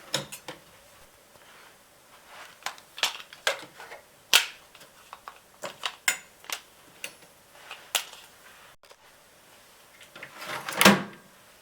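Irregular clicks and knocks of small metal tools and parts being picked up and set down on a workbench, with a louder clatter near the end.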